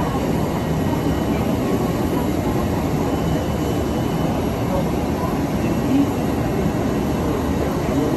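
Steady rumbling background noise with indistinct voices mixed in.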